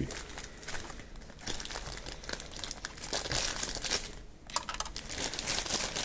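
Thin plastic bag crinkling as hands unwrap a mini-USB cable from it, in irregular rustles with a brief pause about four seconds in.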